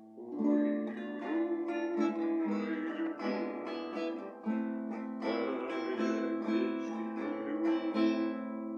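Acoustic guitar playing chords, plucked and strummed with a new attack about every half second.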